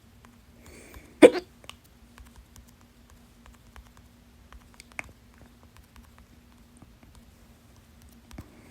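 A loud, sharp hiccup about a second in, with a short breath just before it, then a much fainter click a few seconds later. The uploader puts the hiccups down to trapped gas from a very fizzy soda.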